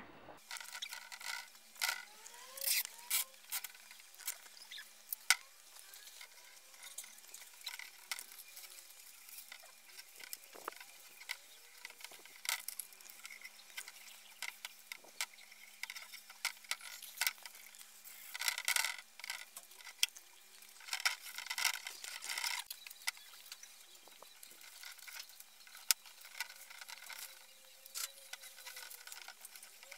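Masking paper and masking tape crackling and rustling as hands press and smooth them along a wooden crib rail, with many small clicks and a few louder bursts of crinkling.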